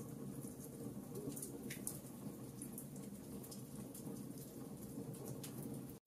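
Wood fire crackling: irregular sharp pops and snaps from burning logs over a low, steady background hum.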